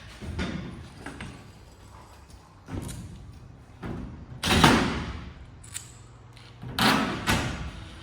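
Knocks, thuds and rattling bursts from bolting polycarbonate sheet onto a metal greenhouse frame. There are a few small knocks, then two louder, longer rattling bursts about halfway through and near the end.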